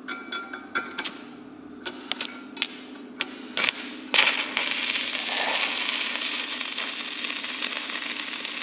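Stick-electrode arc welding with a 140-amp inverter welder. For the first four seconds there are short, scattered crackles and pops as the arc is struck and breaks. About four seconds in the arc catches and holds as a steady, dense crackling sizzle.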